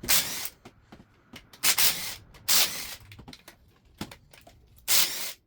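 Four short bursts of spraying hiss, each lasting under half a second.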